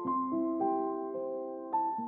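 Soft background piano music: notes struck in turn and left to ring.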